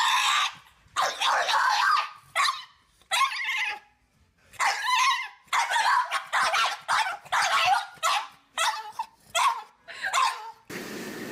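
Boston terrier barking and yowling in a string of short cries, each bending up and down in pitch; the cries stop shortly before the end and a steady hiss follows.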